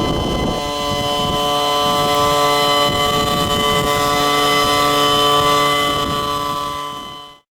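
Gas leaf blower engine running steadily as it pushes a kayak along the water. It fades out near the end and then cuts off.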